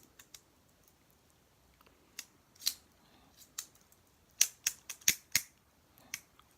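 Leatherman OHT multitool being worked by hand: a series of about a dozen sharp metallic clicks and snaps as its spring-loaded parts open, lock and close, the loudest bunched together in the second half.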